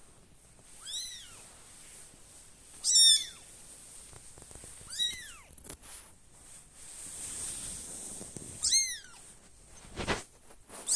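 Young kitten mewing, four high-pitched calls, each rising and then falling in pitch, the second the loudest: isolation calls of a kitten searching for its littermates. A short knock sounds near the end.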